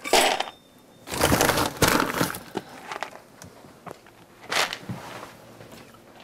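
A black Labrador nosing and pushing at a refrigerator door, making a few short scuffling, sniffing noises: one at the start, two in a row about a second in, and one more past the middle.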